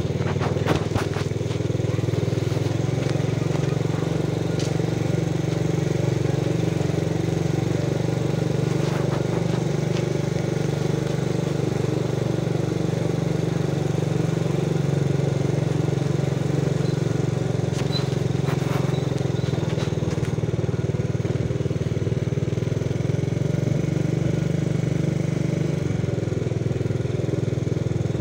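Vehicle engines running steadily, a low even hum, with a few faint clicks about a second in, around nine seconds and near the middle.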